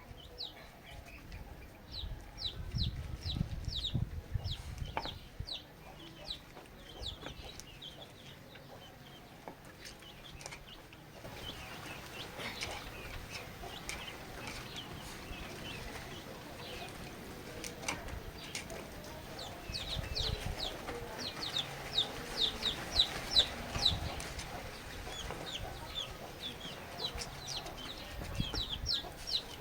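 Chickens calling: runs of short, high chirps that come in clusters, loudest about two-thirds of the way through, with a few low thumps in between.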